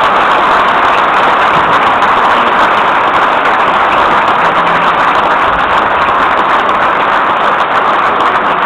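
Crowd applauding steadily in a large gymnasium, a dense unbroken clapping that holds at one level throughout.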